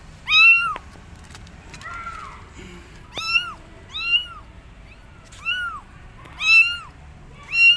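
Kittens meowing loudly: about seven high, arching meows, roughly one a second. These are abandoned kittens calling for their mother cat.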